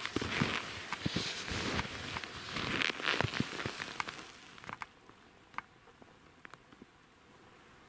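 Skis crunching through snow in a run of steps that stop about halfway; after that only a few faint clicks.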